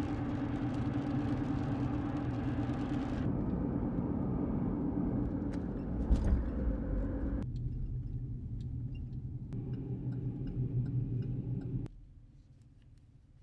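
Steady road and engine rumble inside a moving pickup truck's cabin, in several short clips cut together, with a sharp knock about six seconds in. The rumble drops to a faint hum near the end.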